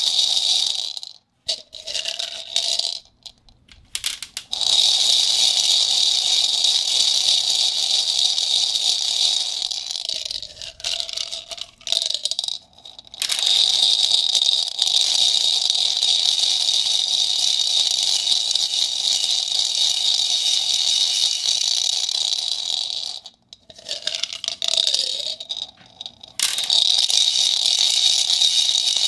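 Ceramic ball rattling around inside a plastic pentagonal cup, a dense, continuous clatter that stops briefly three times before starting up again.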